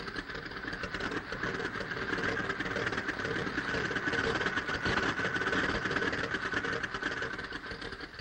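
Light aircraft engine running with the propeller turning, a steady rapid pulsing that swells slightly and then fades out at the very end.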